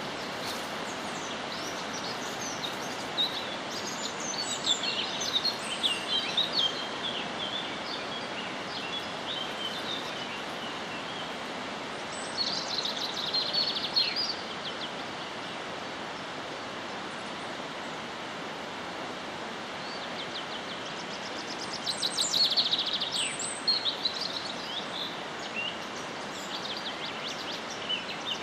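Birds chirping and singing in several bursts, some as rapid trills, over a steady background hiss.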